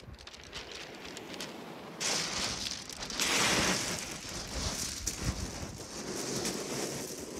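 Sea washing up and back over a shingle beach: a crackling hiss of pebbles that rises suddenly about two seconds in, is loudest a second or so later and then eases off, with a few faint crunches before it.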